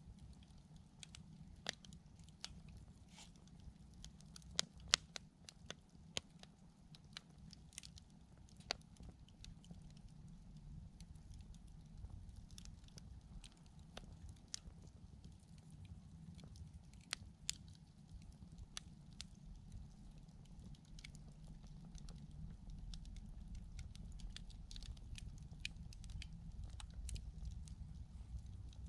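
Wood campfire crackling: irregular sharp pops and snaps over a low steady rumble, the loudest pops about five seconds in and again around seventeen seconds.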